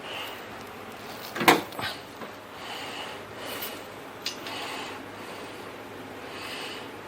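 Calipers and the turned workpiece being handled at the lathe: rubbing and scraping, with a sharp knock about a second and a half in and a short click past the four-second mark.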